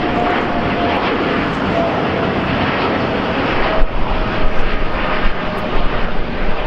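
Boeing 787 Dreamliner's twin turbofan engines at climb thrust just after takeoff: a steady jet rush with a thin whine that slowly falls in pitch as the airliner passes.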